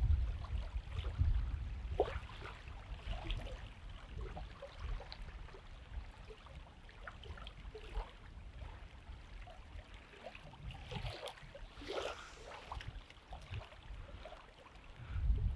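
Wind buffeting the microphone, strongest at the start and then easing, over faint water lapping at the bank, with scattered faint ticks and rustles.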